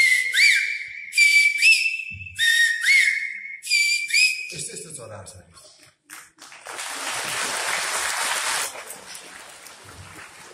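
High whistled imitation of a bird call, in four short phrases. Each phrase is a steady high note with a quick upward flick in pitch. About two seconds of rushing noise follow near the end.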